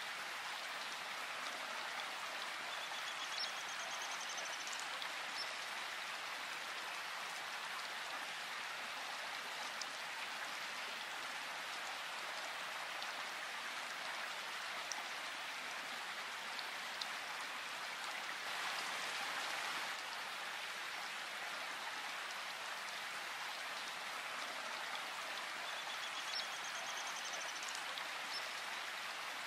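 Steady rain falling in a forest, an even hiss of drops with no letup. A faint high trill sounds twice, a few seconds in and near the end.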